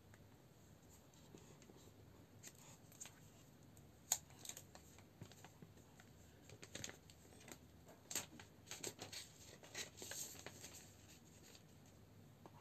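Quiet handling of a new smartphone and its cardboard and plastic packaging: scattered light clicks, taps and brief crinkly scrapes, with one sharper click about four seconds in.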